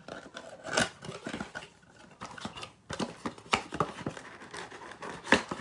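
Cardboard blaster box of trading cards being opened and its foil-wrapped packs taken out: an irregular run of rustles, taps and clicks, loudest about a second in and again near the end.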